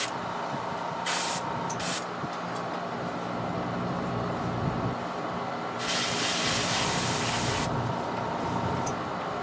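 Airbrush spraying paint: a quick hiss at the start, two more short puffs a second or two later, then a longer, louder spray about six seconds in. A steady low hum runs underneath.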